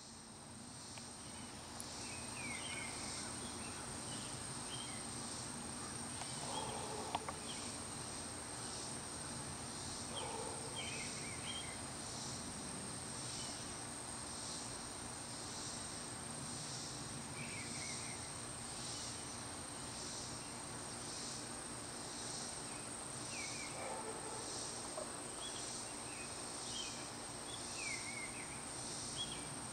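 Insects singing outdoors: a steady high drone with a pulsing insect song repeating about once a second. Short bird chirps come now and then.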